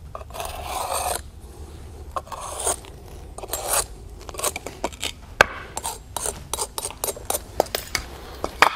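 A hand-held marker scraping over the surface of clay pavers as it traces around a plywood template and draws crosses: one longer rubbing stroke near the start, then a run of shorter scratchy strokes and small taps.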